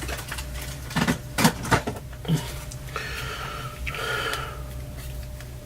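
A Pentax camera and lens being handled and tested: a few sharp clicks, then two short hissing whirs, each under a second, about three and four seconds in.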